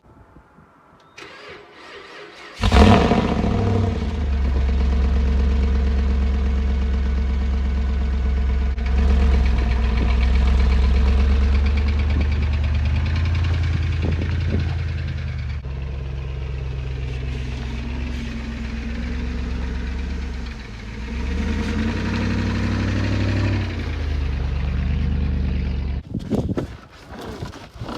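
The 5.7-litre Hemi V8 of a 2005 Dodge Ram 1500 pickup starts with a sudden burst and then runs steadily. Its pitch shifts a few times, and it shuts off a couple of seconds before the end.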